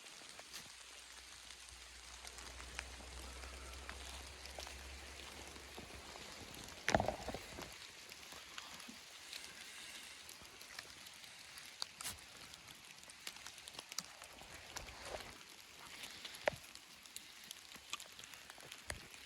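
Light rain: scattered raindrops tapping irregularly over a faint hiss, with a louder thump about seven seconds in.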